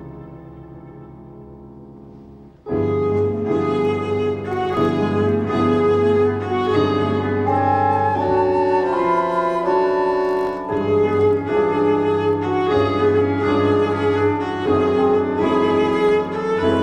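Chamber-style film score for bowed strings and piano: a held chord fades away, then about two and a half seconds in the ensemble comes in louder with a running passage of short notes.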